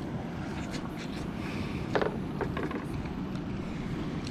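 Wind buffeting the microphone as a steady low rumble, with a few short clicks and knocks from handling, the loudest about two seconds in.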